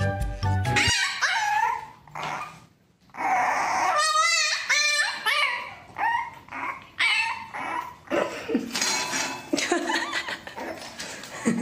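French bulldog puppy whimpering and yipping in short, high, wavering whines, many in a row. Background music plays for about the first second.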